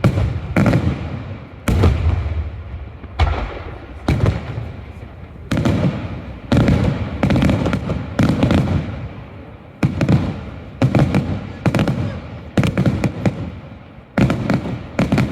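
Daylight fireworks display: aerial shells bursting in a rapid, irregular series of a dozen or so loud bangs, each followed by a low rumbling echo.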